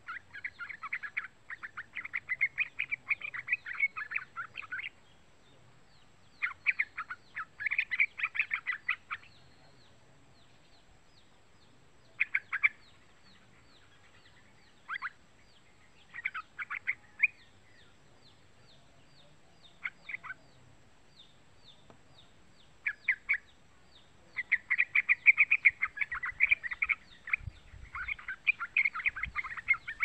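Young yellow-vented bulbul (trucukan) calling in bouts of rapid chattering notes, with short gaps and single brief bursts between them. A long, dense bout begins about 24 seconds in. Faint high ticking continues behind the calls.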